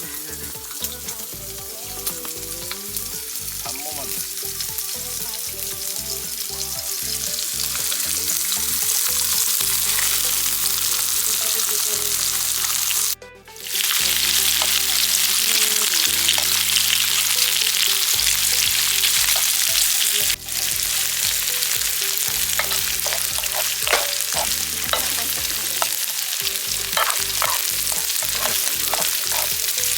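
Food frying in a hot pan: a loud, steady sizzle that builds over the first several seconds, breaks off briefly twice, and picks up crackling pops near the end.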